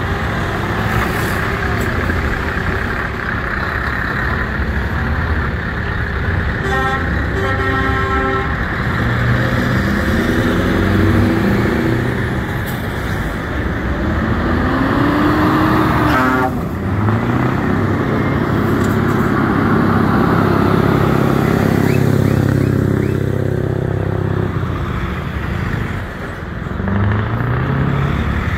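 Heavy trucks' engines running and revving up and down through the gears as they pass. A truck horn sounds for over a second about seven seconds in, and a shorter horn blast comes around sixteen seconds.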